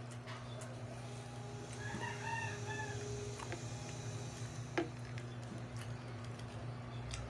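A rooster crows once, about two seconds in, in a call lasting around a second, over a steady low hum. A sharp click comes a little before five seconds in.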